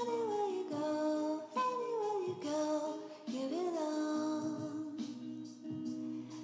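Background music with a woman's voice singing a melody in short phrases, several of them falling in pitch.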